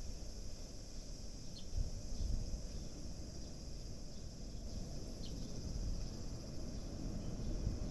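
Outdoor ambience of a steady high-pitched insect chorus, with two short sparrow chirps about one and a half and five seconds in, over a low rumble.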